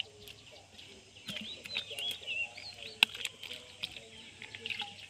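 Small birds chirping and twittering, busiest in the first half. A single sharp click comes about three seconds in.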